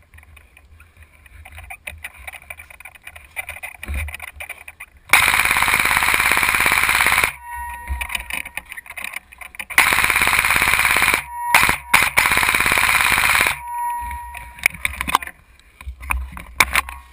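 Airsoft M4 electric rifle firing three full-auto bursts, each a rapid buzzing rattle lasting about one and a half to two seconds, with short gaps between them.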